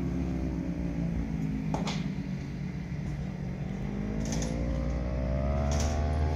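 Racing engine out on the kart track, heard from a distance; its pitch drops, then climbs steadily over a few seconds as it revs up, over a steady low rumble. A few short sharp ticks come through.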